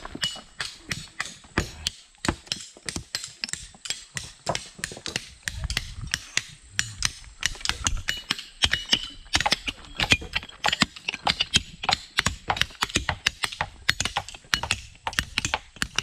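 Rapid, irregular sharp clicking and knocking, about three to four strikes a second.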